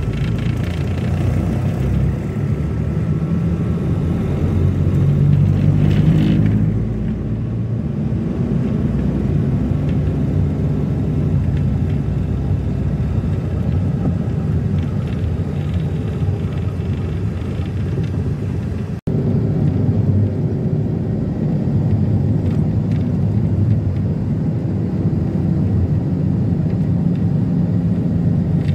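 Steady road and engine rumble inside a moving minivan on the highway. The sound drops out for a moment about two-thirds of the way through.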